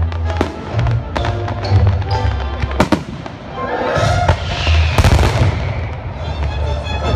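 Fireworks display: repeated sharp shell bursts, with a dense crackling rush from about four seconds in and the loudest bang at about five seconds. Music with a steady bass plays under it.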